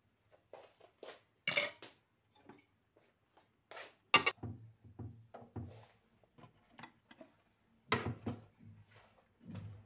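Kitchenware knocking and clattering: a plate set down into a stainless steel pot over stuffed peppers, then the pot lid clanking into place, the sharpest and loudest knock about four seconds in. More knocks and clatter follow about eight seconds in.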